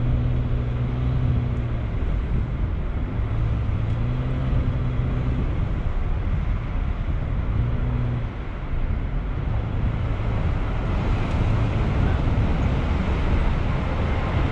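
Car engine and tyre noise heard from inside the cabin while driving slowly, with an engine hum that swells and fades several times. About eleven seconds in the road noise turns louder and hissier as the car enters a road tunnel.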